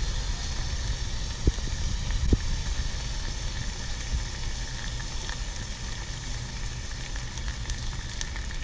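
Sticks of bubble gum bubbling and sizzling in a shallow layer of boiling water in a saucepan, a steady sizzle with fine crackles. Two short low knocks come about one and a half and two and a half seconds in.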